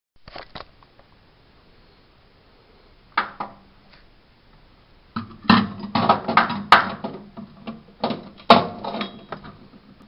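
Microwave oven being handled, with knocks and a dense run of sharp clicks and clatter in the second half. A low steady hum comes in about three seconds in.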